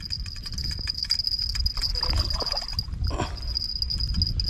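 Steady high-pitched drone of insects. A low rumble and scattered faint clicks sit underneath it.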